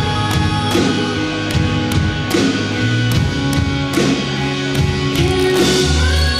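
Rock band playing live: electric guitars, bass and drums, with drum and cymbal hits on a steady beat under held guitar notes.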